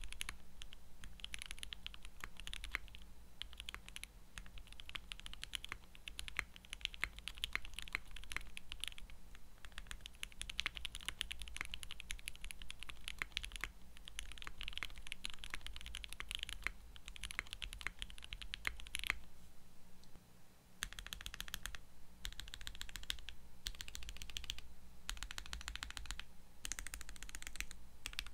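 Fast typing on a Portico mechanical keyboard with lubed and filmed Everglide Water King linear switches, ePBT 9009 keycaps and C3 stabilizers, silicone dampening fitted in the case: a dense, steady run of keystrokes. About twenty seconds in it pauses briefly, then comes in shorter bursts of key presses with gaps between.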